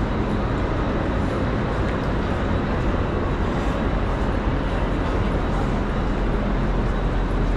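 Steady background din of a busy city place, an even wash of noise with a strong low rumble and no distinct single event.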